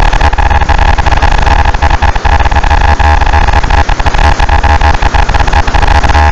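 Shortwave radio audio run through an effects processor into a loud, dense ticker-tape or printer-like clatter: a steady mid-pitched tone and a deep hum chopped by rapid, irregular clicks.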